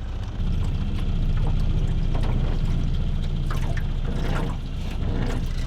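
A boat motor running with a low, steady rumble that steps up louder about half a second in.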